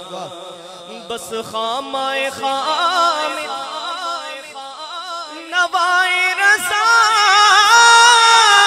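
Male voice singing a naat, a devotional hymn, in long wavering melismatic notes, growing louder about six seconds in.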